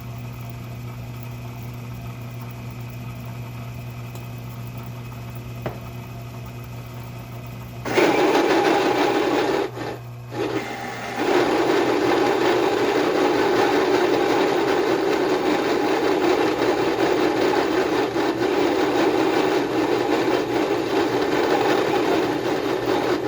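Metal lathe running with a steady motor hum; about eight seconds in, a Morse taper drill starts cutting into the spinning steel workpiece with a loud, harsh grinding, breaking off briefly twice, then carrying on until near the end. The drill had been badly resharpened, which made the drilling harder than expected.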